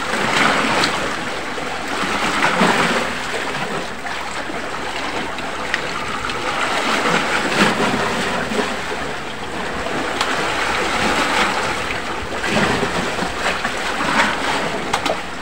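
Sea waves washing against a rocky shore, a steady rushing noise, with a few short clicks over it.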